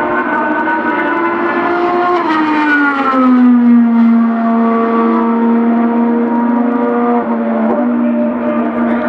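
IndyCar's 2.2-litre twin-turbocharged V6 racing engine running hard, its note dropping in pitch about two to three seconds in, then holding a steady high pitch.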